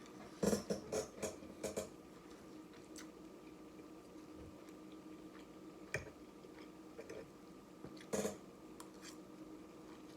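Close-up eating sounds of a person chewing noodles and fish: a quick run of wet mouth clicks about half a second in, a single click around six seconds, and another short burst near eight seconds.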